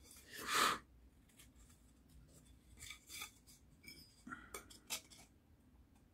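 A carving knife shaving a wooden axe wedge in one slicing stroke about half a second in, a scrape that falls in pitch. Then faint clicks and rubs as the knife is set down and the wedge and steel axe head are handled.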